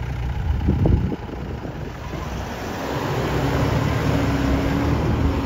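Toyota Fortuner SUV's engine running as it drives slowly past on a dirt track, getting louder about halfway through as it comes close, with tyre and wind noise. A short loud noise about a second in.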